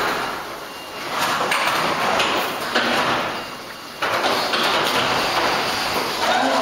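Texpa QRSN 132-2 automatic label-sewing machine for terry towels running, a loud mechanical noise that eases off twice and surges back suddenly about four seconds in.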